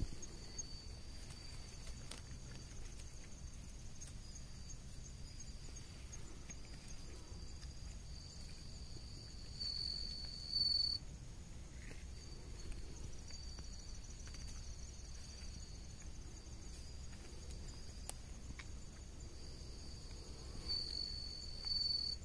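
Night insects trilling: a steady high-pitched trill that swells louder about ten seconds in and again near the end, with a second, faster-pulsing trill higher up through the middle.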